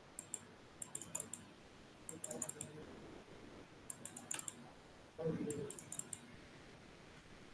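Computer mouse and keyboard clicking in five short bursts of quick clicks, spaced about a second apart.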